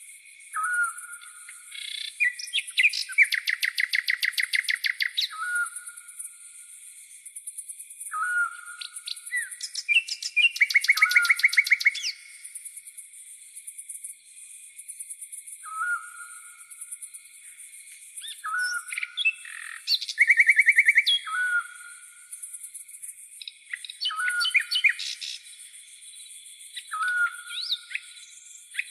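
Tropical forest birds calling. A short upward whistled note comes back every few seconds, and loud rapid trills of a second or two come three times, all over a steady high chirring of crickets.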